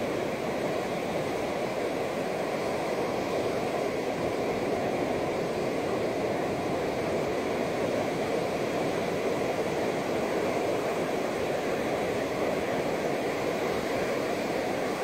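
Ocean surf: small waves breaking and washing up a flat sandy beach, heard as a steady rushing.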